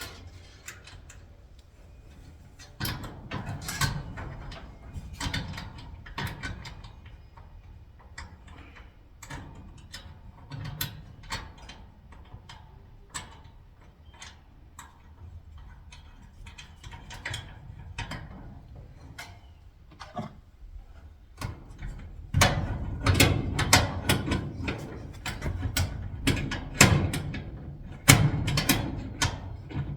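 Repeated clicks and knocks of a hand tool and metal hardware as a nut is worked onto a 1/4-inch bolt on a garage door lock's cable fitting. The clatter grows busier and louder for the last third.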